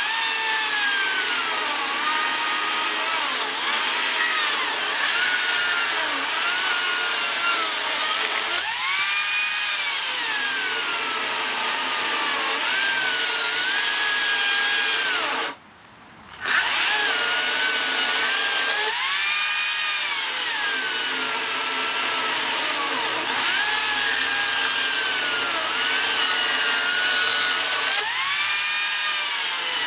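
Makita cordless brushless chainsaw cutting through rough-sawn treated timber posts: an electric motor whine with the chain rasping through wood. The pitch sags under load and rises sharply each time the saw breaks through, about every ten seconds. The sound cuts out briefly about halfway.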